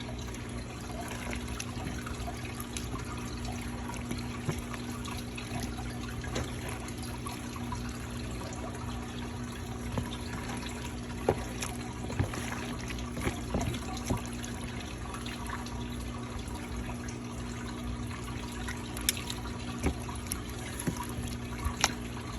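Slime being mixed and kneaded by hand: scattered wet, sticky clicks and pops over a steady hiss, in bunches about halfway through and near the end.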